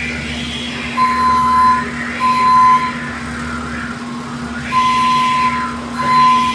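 Electric forklift's warning beeper sounding as it backs out of a racking lane: four steady single-pitch beeps, each just under a second, in two pairs. Under them run a steady low hum and a wavering tone that rises and falls about every two seconds.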